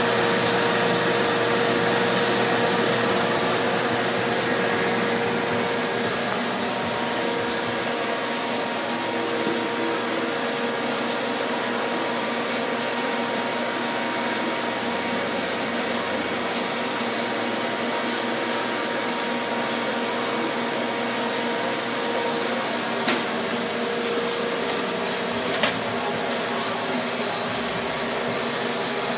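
EZTrim Drone electric bud trimmer running: a steady motor whir with a constant hum as its brush reel spins over buds in the slotted bowl. There is a sharp click just after the start and two more near the end.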